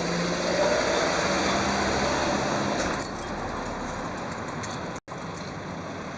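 Outdoor vehicle noise of something passing by, with a faint rising whine. It is loudest for the first three seconds, then drops suddenly to a lower steady hum, with a brief cut to silence about five seconds in.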